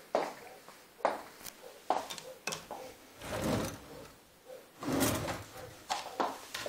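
Drawers being slid open and shut: several sharp knocks at irregular intervals, with two longer sliding rumbles about three and five seconds in.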